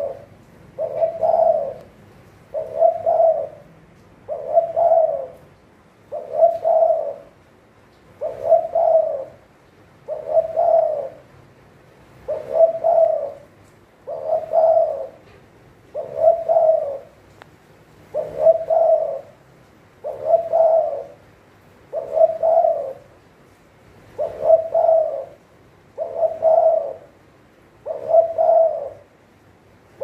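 Spotted dove cooing, repeating its coo phrase steadily about every two seconds.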